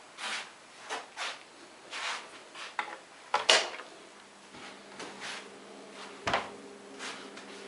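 Rustling and rubbing handling noises, about one a second, with a sharp click about halfway through and a knock near the end, after which a low steady hum sets in.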